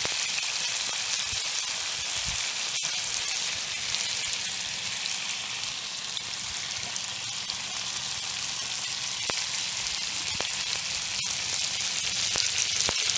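Mutton snapper fillets frying in hot oil in a pan, with lemon juice being squeezed in: a steady high-pitched sizzle with a few faint ticks.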